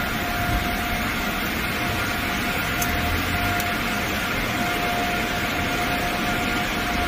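Automatic tunnel car wash equipment running, heard from inside the car: a steady rush of noise with a constant mid-pitched hum through it.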